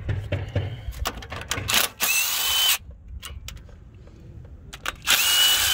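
Cordless power tool with a 10 mm socket running in two short bursts, each with a whine that rises and then holds steady, backing out the brake-line bracket bolts. Light clicks and knocks of tool handling come before the first burst.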